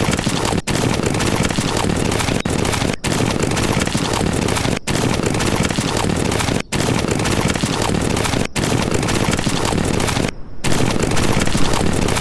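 A dense, continuous volley of rapid gunfire, a cartoon sound effect, broken by brief gaps about every two seconds.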